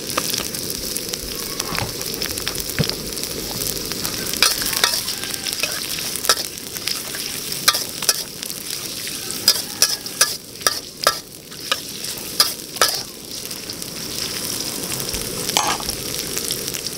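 Sliced shallots, garlic, ginger and torch ginger flower sizzling steadily in hot oil in a wok, with a metal spatula scraping and clicking against the pan; the clicks come thickest a little past the middle. This is the first fry of the aromatics, cooked part way to bring out their aroma.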